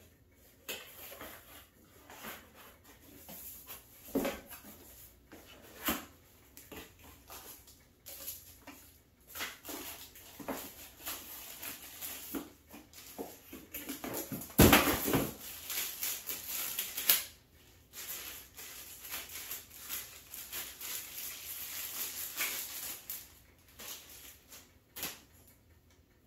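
Rustling and handling of packaging as a rifle scope is unboxed, with scattered light clicks and taps. There is a louder stretch of rustling for a couple of seconds around the middle.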